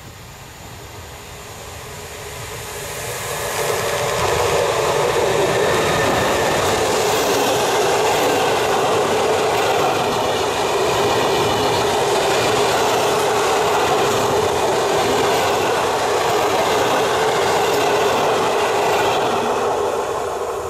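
Passenger train hauled by a NEWAG Griffin EU160 electric locomotive passing close by. It grows louder over the first few seconds as the locomotive nears, then holds as a steady rush of wheels on rail while the coaches go by, and fades near the end.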